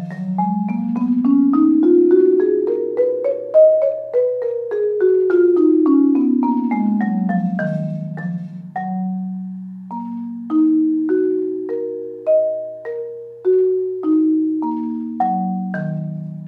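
Concert marimba played with mallets: a quick run of notes climbing steadily and then falling back down, followed by slower, separately struck notes that fade out near the end.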